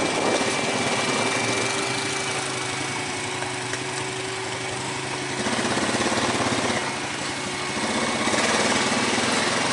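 Four-wheeler's engine running under load on a rutted dirt trail climb, with its automatic transmission. The engine gets louder about five and a half seconds in and again near eight seconds in.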